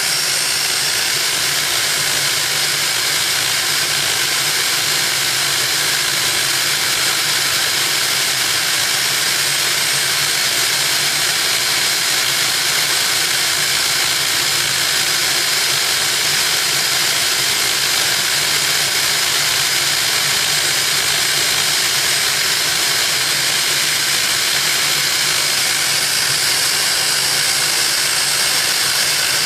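Home-built turbocharger jet engine (gas turbine) running steadily: a loud, even rushing hiss with a thin high whine held on top.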